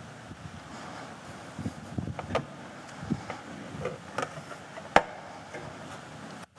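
Footsteps, shuffling and small wooden knocks of people moving about in a quiet church sanctuary, over a steady room hiss, with one sharp click about five seconds in.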